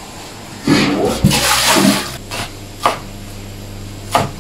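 Water sloshing and splashing in a stainless steel basin as a handful of cilantro is swished and lifted out. About two seconds in it gives way to a few separate knocks of a cleaver chopping on a wooden cutting board.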